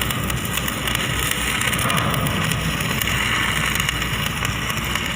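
Stick (electric arc) welding: the arc crackling and hissing steadily, with a dense run of small irregular pops.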